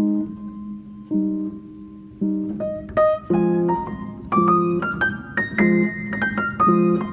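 Background piano music: low chords about once a second, with runs of higher notes climbing over them in the second half.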